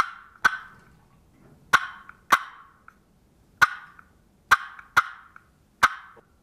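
Wooden turkey box call making clucks: the lid is held nearly closed with a little pressure and popped off the side. This gives about eight short, sharp clucks at uneven spacing, each with a brief ring.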